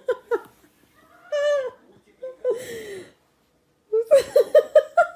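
Tabby cat meowing in quick runs of short, clipped calls, about five a second, with a couple of longer single meows between the runs.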